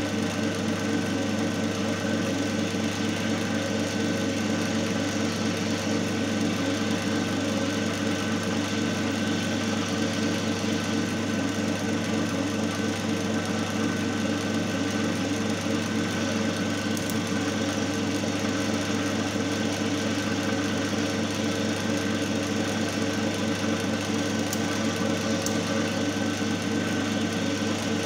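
Single-phase capacitor-run induction motor driving a coupled load machine under load at about 1444 rpm: a steady hum with a mechanical whir from the turning shaft set.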